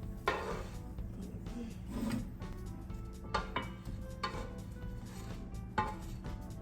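Quiet background music, with a handful of short clinks and scrapes of a utensil against a pan and a bowl as mini pancakes are moved into the bowl.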